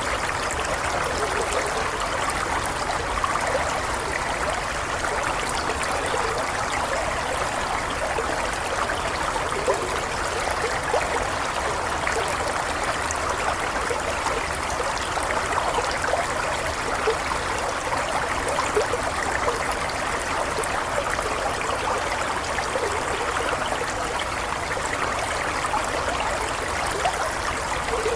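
Small stream flowing steadily over stones, a continuous babbling trickle with many small splashes.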